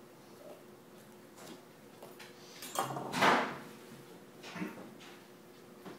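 Kitchen handling noise: a short sliding scrape with a knock about three seconds in, and a lighter knock about a second and a half later.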